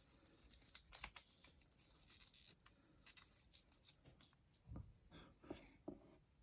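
Faint, scattered clicks and light rustles from an action figure being handled and turned over, in near silence.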